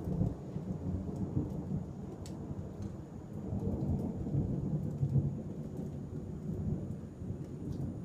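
Rolling thunder: a low rumble that breaks in suddenly and swells again about four to five seconds in before easing off.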